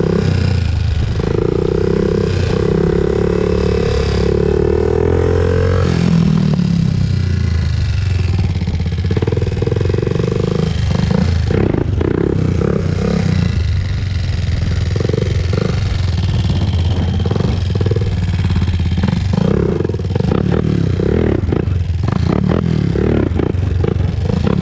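Honda TRX400EX ATV's single-cylinder four-stroke engine running under way, revving up and easing off again and again, with one long rise in pitch that drops away about six seconds in.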